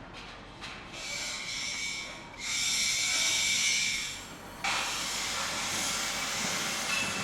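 Construction-site machinery noise: a high hissing with a steady high whine that swells about a second in and grows louder, then dips and switches suddenly to a harsher, steady hiss a little past the middle.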